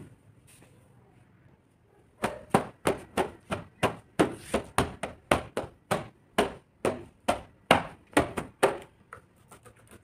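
A cleaning cloth swept back and forth over a car's bodywork in quick strokes, about two to three swishes a second, starting about two seconds in and stopping about a second before the end.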